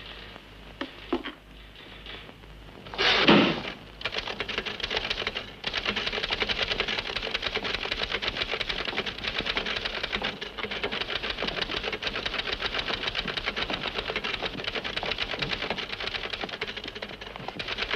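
Manual typewriter being typed on rapidly and continuously, keys clacking many times a second from about four seconds in. Just before the typing starts there is a brief loud burst of noise.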